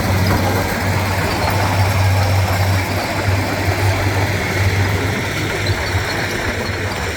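Heavy diesel engine of earthmoving machinery running steadily, with a deep constant drone under a broad mechanical noise.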